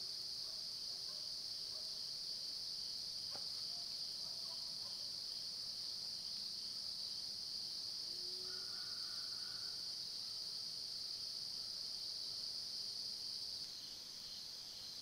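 Steady, continuous high-pitched chorus of crickets and other insects in late-summer woods, dropping a little in level near the end. A single faint click comes about three seconds in.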